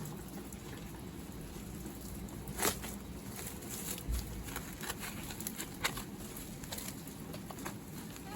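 Rain pattering steadily, with scattered sharp ticks of drops, one louder about two and a half seconds in.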